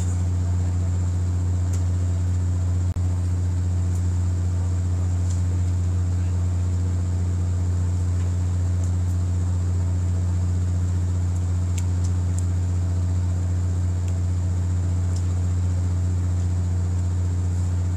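Fishing boat's engine running at a steady speed: a constant low hum with overtones, unchanging throughout. A few faint ticks sit on top.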